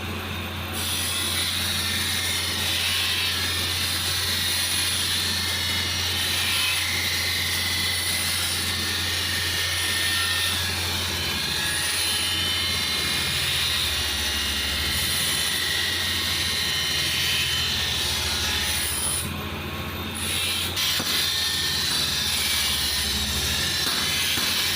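A workshop machine running steadily: a low hum under a loud, even hiss, which dips briefly twice.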